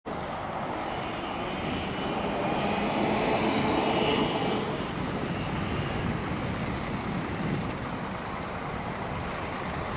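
Distant drone of small vintage propeller planes, Boeing Stearman biplanes and a De Havilland Chipmunk, flying in formation. It is heard over a steady wash of open-air noise and swells a little in the first half.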